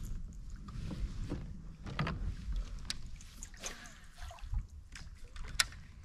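Fishing gear being handled in a kayak: scattered light clicks and knocks from rod and reel, the sharpest one near the end, over a low rumble.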